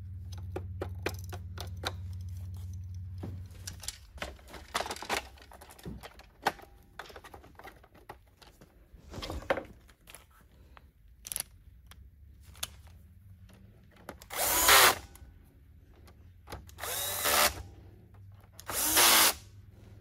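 Cordless power screwdriver running in three short bursts of about a second each near the end, backing the side-brush screw out of a Roomba 600-series vacuum. Before that come small clicks and knocks of plastic parts being handled, over a low hum in the first few seconds.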